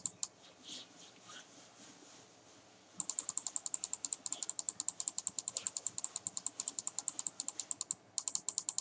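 Rapid, evenly spaced clicking of a computer mouse button, about ten clicks a second. A brief run at the start stops, and after about three seconds of near quiet a long run starts up again that lasts almost to the end.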